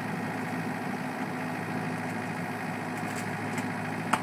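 Caterpillar 305-5D mini excavator's diesel engine running steadily while the bucket works the ground, with one sharp click near the end.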